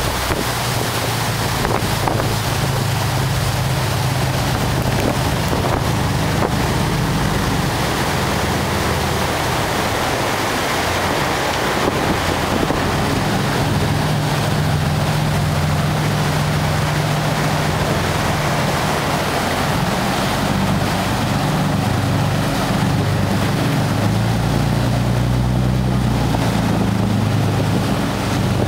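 Powerboat engines running at speed, a steady low drone whose pitch shifts a little now and then, over a constant rush of water from the hulls and wakes. Wind buffets the microphone throughout.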